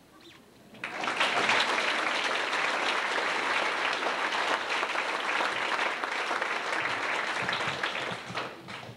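Audience applauding. The clapping starts suddenly about a second in, holds steady, and tails off near the end.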